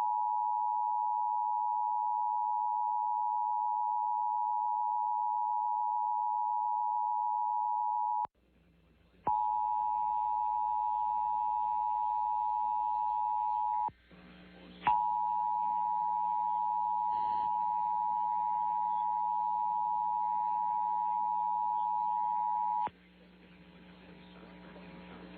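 Emergency Alert System two-tone attention signal: a steady electronic tone that sounds for about eight seconds, breaks off for about a second, sounds again for about four seconds, breaks again and then holds for about eight seconds more. A low hum sits under the later tones.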